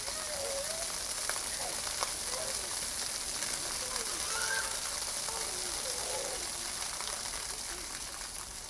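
Jets of a floor fountain hissing and splashing onto wet paving, with scattered children's shouts and calls over it. The spray eases near the end as the jets drop lower.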